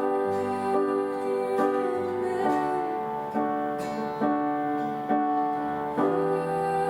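Instrumental worship music between sung lines: held piano or keyboard chords with guitar, a new chord struck about every second.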